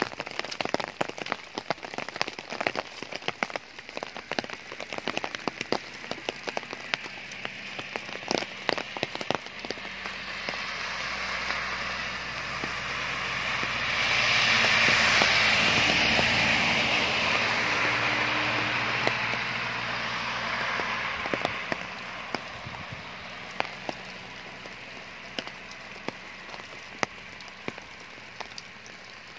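Falling wet snow and sleet pattering, with many sharp ticks of pellets striking close by. A tow truck drives past on the wet, slushy road, its engine and tyres swelling up to be loudest about fifteen seconds in, then fading away.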